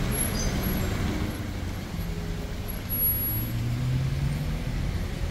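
Road traffic on a wet street: vehicle engines running over a steady hiss of tyres, with one engine's note rising about three seconds in.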